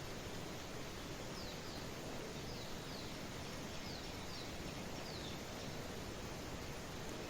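Steady hiss of a light shower of rain, with a bird giving faint, short falling chirps, mostly in pairs, through the middle of the stretch.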